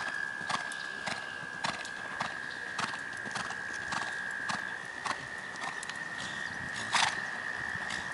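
Horse's hoofbeats on a sand arena footing at a trot, an even beat about twice a second, with one louder strike about seven seconds in. A steady high-pitched tone runs underneath.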